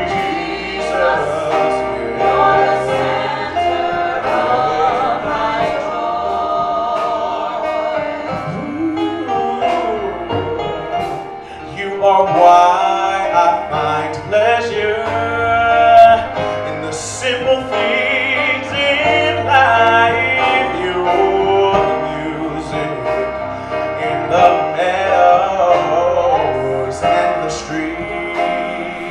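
Gospel singing with keyboard accompaniment: a man's voice leads, with women's backing voices, his long held notes wavering with vibrato. It grows louder about halfway through.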